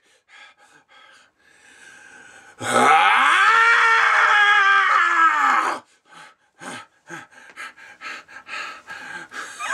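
A man's voice letting out one long, drawn-out mock death cry for a puppet being stabbed. The pitch climbs sharply, then sags slowly over about three seconds. It is followed by a run of short, breathy sounds.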